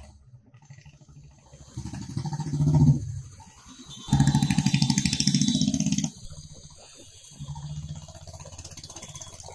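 Motorcycle engine running while the bike is ridden, with an even pulsing beat. It gets louder in two stretches, about two seconds in and again from about four to six seconds, and runs quieter after that.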